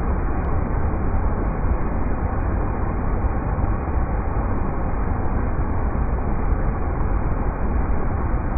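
River rapids rushing: a steady, even roar of water, heavy in the deep low rumble and dull at the top.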